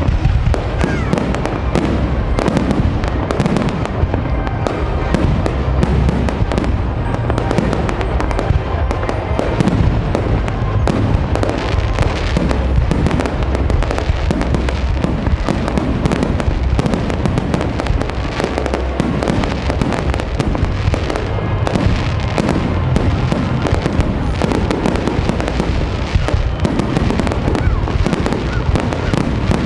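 Fireworks display: a dense, unbroken barrage of shell bursts and crackling bangs, many per second, over a low rumble.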